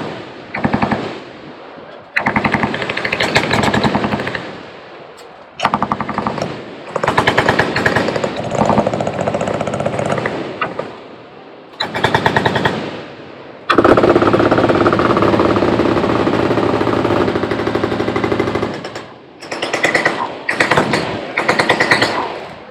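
Machine guns firing full-auto in repeated bursts of rapid fire, each lasting one to three seconds, with one long unbroken burst of about five seconds about two-thirds of the way through.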